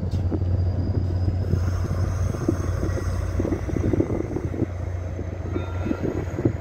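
VIA Rail passenger train pulling out of the station, its LRC coaches rolling past close by: a steady low rumble with irregular wheel clatter, and a faint high whine that rises slowly in pitch.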